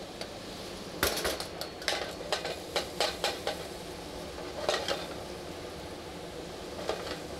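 Stainless steel sauté pan of potatoes and onions clanking against a gas range grate as it is handled: a quick run of sharp metal clanks starting about a second in, another cluster past the middle and a lighter one near the end, over a steady hiss.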